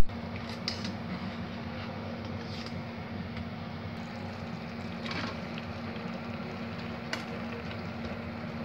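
Chicken and masala simmering in an aluminium pot on a gas burner, a steady sizzle and bubbling with a few faint ticks, over a steady low hum.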